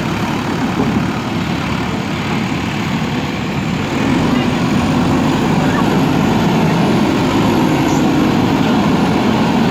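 JCB backhoe loader's diesel engine running steadily, getting louder about four seconds in.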